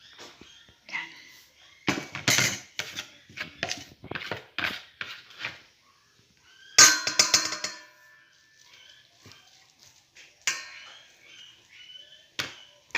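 A spoon scraping and knocking against a bowl as scraped bisol is transferred into it. There is a run of short knocks and scrapes, with one loud clatter about seven seconds in that rings briefly.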